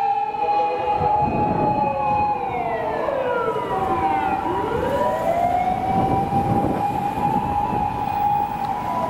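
Japanese fire engine's siren wailing as the pump truck drives past: a held tone that falls away steeply about a third of the way in, then climbs back up and holds again, over passing traffic.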